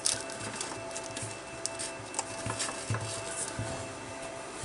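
Hands handling the sheet-metal case of a car DVD player on a workbench: irregular light clicks, taps and soft knocks as it is turned over, over a faint steady hum.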